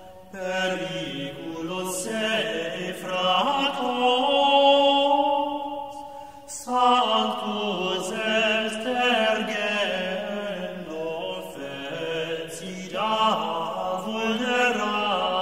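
Slow chanted vocal music for meditation: long held sung notes in three unhurried phrases, each new phrase starting after a brief dip.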